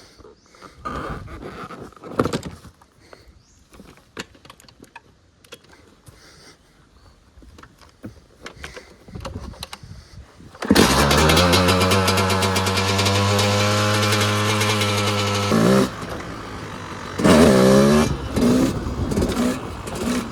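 Yamaha YZ250 two-stroke dirt bike engine starting. After about ten seconds of clicks and knocks it fires suddenly and runs steadily for about five seconds, then drops back, gives a quick rising rev, and ends with a few short throttle blips.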